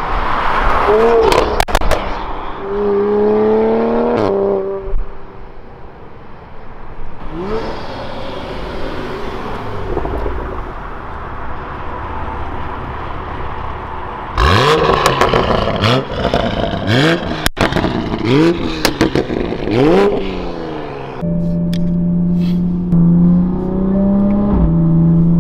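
2020 Toyota Supra's turbocharged inline-six through a Fi valved exhaust, valves open, accelerating hard past the listener several times. The pitch rises through each gear, with sharp cracks among the revs, then the engine holds a steady note near the end.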